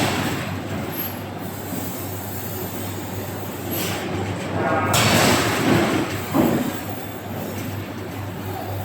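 Forge-shop machinery running: a steady low hum under metallic rumbling, with loud hissing surges about four and five seconds in.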